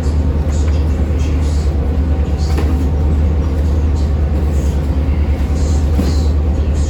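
Towboat's diesel machinery running with a steady, loud low drone and a constant hum, with faint short rustles and knocks on top.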